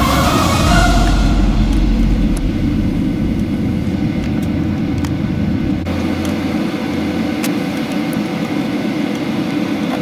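Cabin noise inside a Boeing 737-800 taxiing, with its CFM56 engines at idle: a steady low hum and rumble, plus a few faint clicks. The deepest rumble eases off about seven seconds in. Cabin music trails off in the first second or two.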